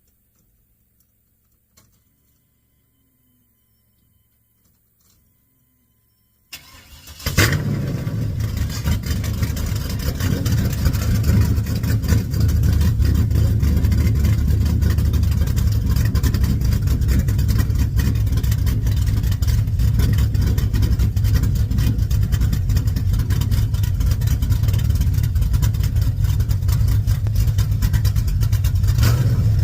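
A few seconds of near silence with faint clicks, then the LS-swapped 6.0 V8 cranks briefly and fires about seven seconds in, settling into a loud, steady cold-start idle. It runs through loose open pipes with no muffler.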